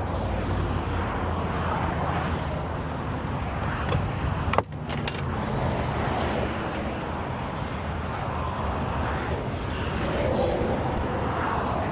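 Highway traffic passing: a steady low rumble of tyres and engines that swells and fades as vehicles go by. There is a single sharp click about four and a half seconds in.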